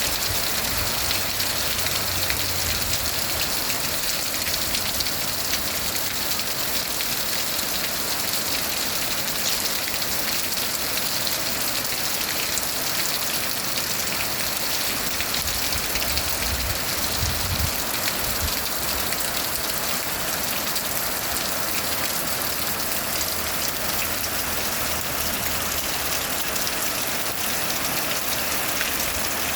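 Heavy rain falling steadily, a dense patter of drops hitting surfaces, with a couple of brief low rumbles near the start and about halfway through.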